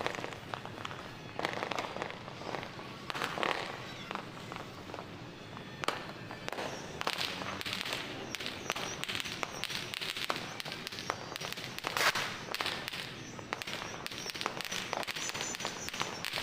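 New Year's fireworks and firecrackers going off: a dense, continuous crackle of many pops and bangs, with the loudest bang about twelve seconds in.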